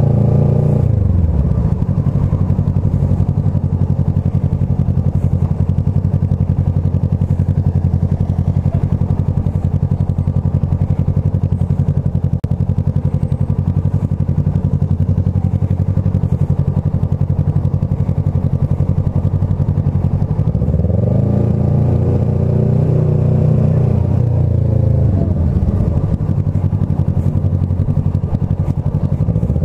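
Kawasaki ER6F motorcycle's parallel-twin engine running at low revs while riding slowly. The revs drop in the first couple of seconds and hold low for a long stretch, then climb about two-thirds of the way through, ease off and climb again near the end.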